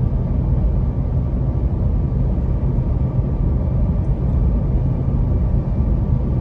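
Inside the cabin of a 2013 Toyota 4Runner cruising at about 65 mph while towing a 4,500 lb travel trailer: steady hum from its 4.0-litre V6 held near 3,000 rpm in fourth gear under load, over a constant road and tyre rumble.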